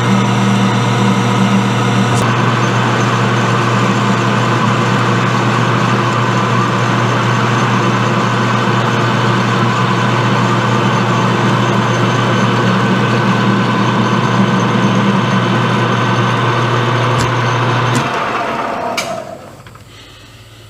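Metal lathe running while a grooving tool cuts into a turned metal part: a loud, steady hum with cutting noise over it. About 18 seconds in, the lathe is switched off and winds down.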